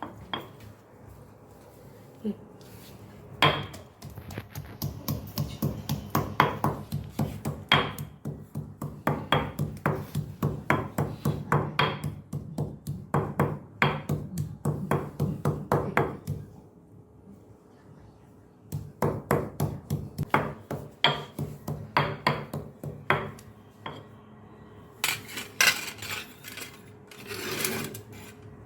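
A pestle pounding in a mortar to crush herbs, in steady rhythmic strikes of about three a second, each with a brief ring. A long run of strikes is followed, after a pause, by a shorter one. A short scraping rustle comes near the end.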